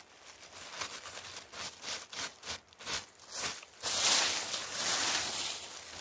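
Gloved hand scraping and brushing loose soil and dry leaf litter: a run of short scratchy rustles, then a louder stretch of brushing about four seconds in.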